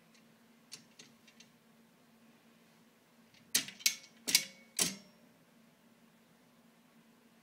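Metal baby gate rattling as a small child grips and pulls on its bars: a few faint clicks, then four sharp metallic clacks in quick succession past the middle, with a brief ring after them.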